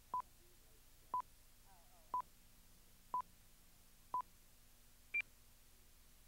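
Countdown leader beeps on a broadcast tape: five short, single-pitch beeps one per second, then a sixth, higher-pitched beep about five seconds in.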